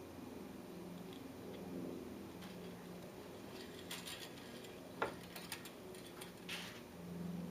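A few sharp clicks and light taps, the loudest about five seconds in, with a short scrape just after, over a faint steady hum.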